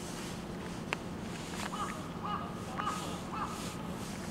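A bird calling about four times in a row, short hooked calls spaced about half a second apart, with a single small knock before them.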